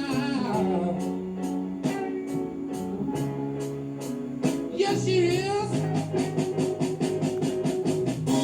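Background music: a song with a singing voice over plucked guitar, with quick repeated strummed notes in the second half.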